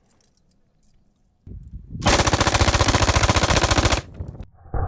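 MG42-pattern machine gun (MG3) in .308 firing one full-auto burst of about two seconds, starting about two seconds in. The shots come at a very high rate of fire and run together.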